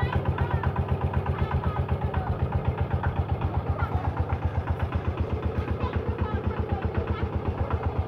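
An engine idling steadily, with a rapid, even throb.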